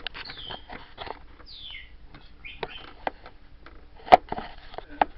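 African grey parrot making short squeaky whistles that slide down in pitch, mixed with a run of sharp clicks, the loudest a single snap about four seconds in.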